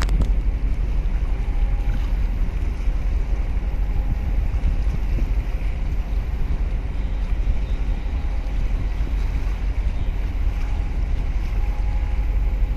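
Wind rumbling steadily on the microphone, with water washing against the concrete breakwater blocks and a faint hum that comes and goes from a large container ship passing close by.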